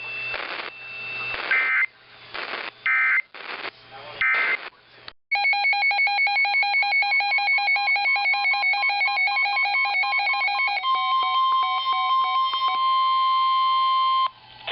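Emergency Alert System tones on a weather radio broadcast. First come three short buzzy digital data bursts over radio static. After a brief gap, a pulsing electronic alert tone plays for about five seconds, then a steady single-pitch alarm tone for about three and a half seconds, which marks the start of a new warning.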